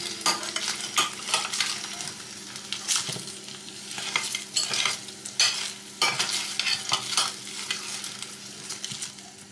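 A metal slotted spoon scrapes and knocks against a glass baking dish, in irregular strokes, as roasting potatoes are turned in hot oil that sizzles.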